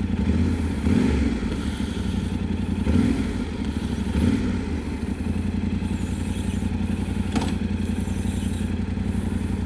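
Yamaha Ténéré 700's parallel-twin engine running steadily, with a short sharp click about seven seconds in.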